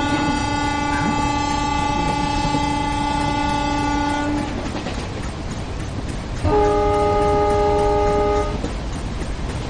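Train horn sounding a long blast that cuts off about four seconds in, then a second blast of about two seconds, over the steady rumble of a running train.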